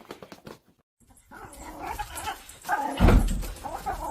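A dog vocalising close to the microphone, with a loud low thump or bump about three seconds in.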